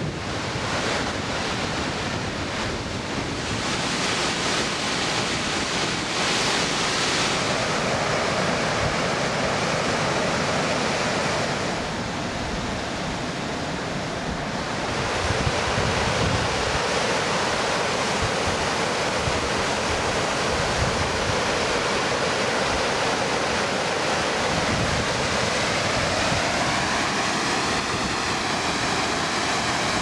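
Water of the Skógá river rushing steadily over waterfalls and rapids, with wind buffeting the microphone. The rush dips slightly in level a little before halfway, then comes back full.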